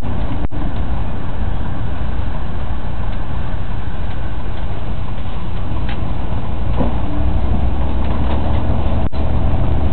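Steady low rumble of a motor vehicle's engine and road noise, heard from inside the vehicle, with two brief cuts in the sound.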